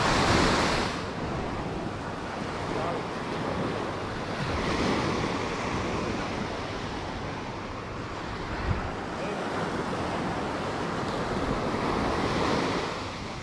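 Small waves washing up a sandy beach, the surf swelling three times: at the start, about a third of the way in, and again near the end.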